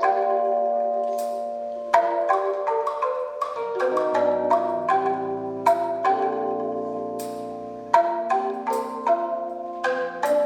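Music of struck tuned bamboo bars, a Sundanese calung renteng, played in quick runs of ringing notes. Low held tones join underneath about four seconds in.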